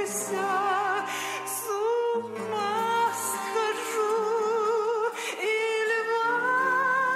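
A woman's voice singing long held notes with a wide vibrato over sustained low accompaniment chords.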